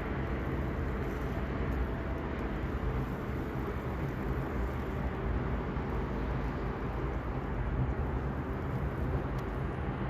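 Steady low mechanical drone with a constant hum that does not change.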